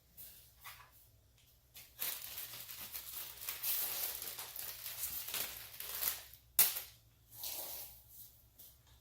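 Nylon zip tie (tie wrap) being drawn through its locking head, a long rasping zip lasting about four seconds, followed by a sharp click and one more short rasp.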